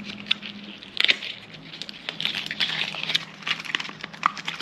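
Rustling, scraping and scattered small clicks of packaging being handled as a tightly packed thermometer unit is worked out of its box.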